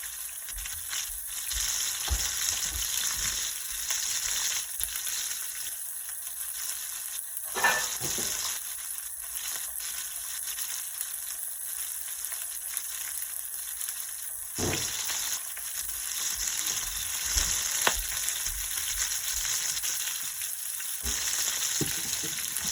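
Whole red snapper deep-frying in hot oil in a pot, a steady sizzle with crackling spatter. A brief knock comes about eight seconds in and another near fifteen seconds, after which the sizzle is a little louder.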